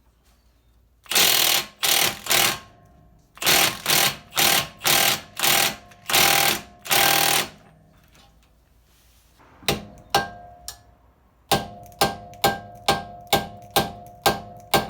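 Air impact wrench hammering in short bursts as it runs up and tightens the front drive axle nut, then a quick run of sharp metal-on-metal hammer taps that ring.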